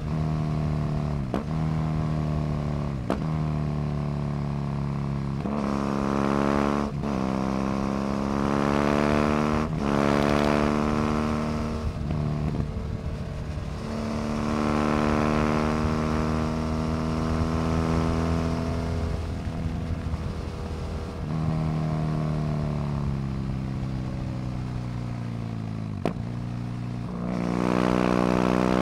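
BMW F800GS parallel-twin engine through a LeoVince slip-on exhaust, accelerating hard through the gears: the revs climb and break off with each quick upshift, several in a row in the first ten seconds. Later it holds steady, then the revs fall away as the rider rolls off, with one more shift, and it pulls hard again near the end.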